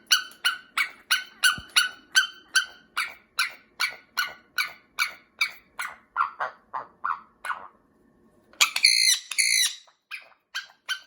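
Pet parrot calling in a fast, even run of short, sharp repeated calls, about three a second, growing fainter and stopping briefly around eight seconds in. A louder, longer squawk follows about nine seconds in, then the quick calls start again.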